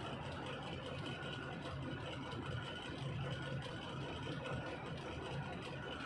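Heavy engine idling steadily, a low even rumble with no changes in speed.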